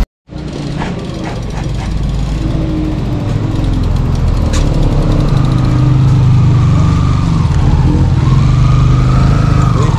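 A motor vehicle engine running steadily with a heavy low rumble and road noise, cutting in sharply after a short dropout.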